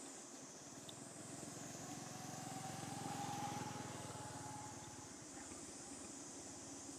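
A motor vehicle passing by: a low engine hum that swells over a few seconds and fades away again, over a steady high hiss.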